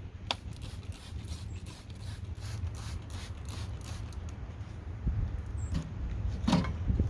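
Hand-pump spray bottle spritzing beef ribs in a smoker: a trigger click, then a quick run of short hissing squirts. A short pitched squeak comes near the end.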